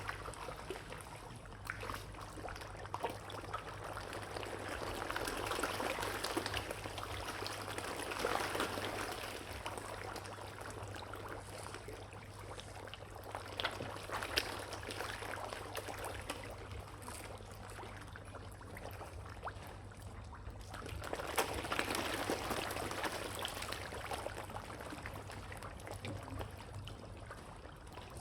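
Water splashing and trickling with scattered small clicks, growing louder twice, over a steady low hum.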